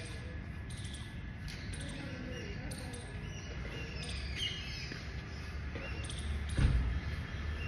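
Small birds chirping and calling over a low rumble, with a single thump about six and a half seconds in.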